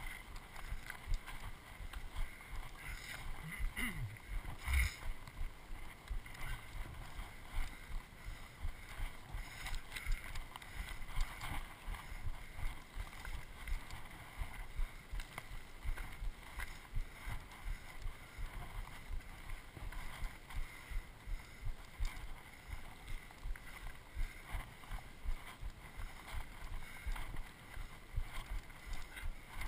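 Footsteps on a dry dirt-and-gravel trail, a steady walking tread of about two steps a second, with one sharper knock about five seconds in.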